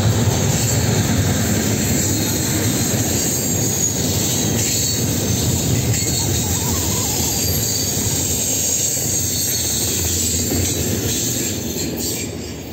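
Double-stack intermodal well cars rolling past on curved track: a steady rumble of steel wheels on the rails with a thin, high wheel squeal over it. The sound drops away near the end as the last car goes by.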